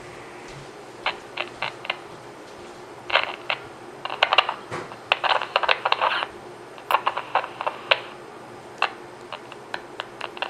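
Suntone six-transistor AM radio's speaker crackling in irregular bursts, starting about a second in, over a faint steady hiss of static, as its 9-volt battery is pressed down: a sign of an intermittent connection, which the owner suspects is a loose solder joint.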